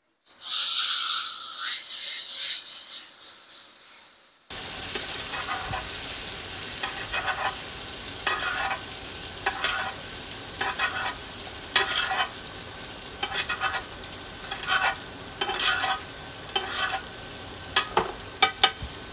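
Ribeye steak laid into a very hot cast iron skillet, a loud burst of sizzling that fades over about four seconds. Then, about four and a half seconds in, steady sizzling of butter as the steaks are basted, with a spoon scooping and splashing the butter roughly once a second.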